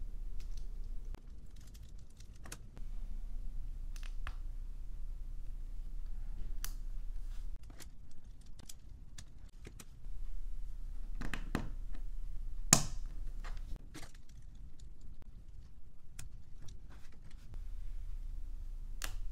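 LEGO Technic plastic pieces being handled and pressed together: scattered small clicks and snaps, with the sharpest click about thirteen seconds in.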